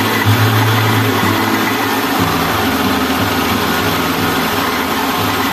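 Small rice milling machine running: a steady motor hum under the dense rattle of paddy grain pouring onto its shaking sieve.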